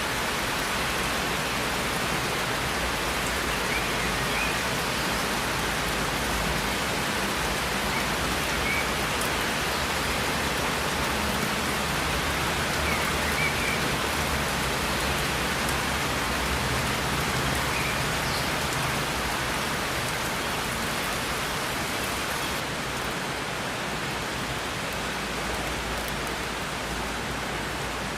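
Steady rain falling and pattering on hard surfaces, an even dense hiss with a low rumble underneath.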